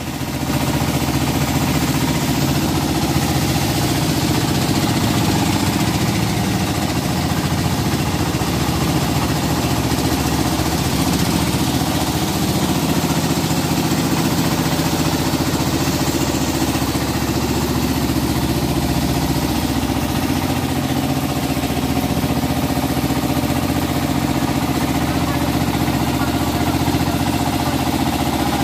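Outboard engine of a wooden river boat running steadily under way, with a constant hiss over it.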